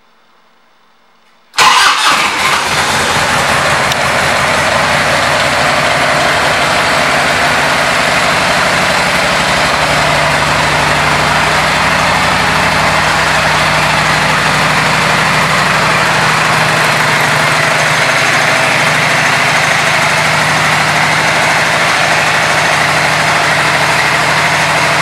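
1994 Harley-Davidson Ultra Classic's Evolution V-twin starting about a second and a half in, loudest for the first couple of seconds, then settling into a steady idle.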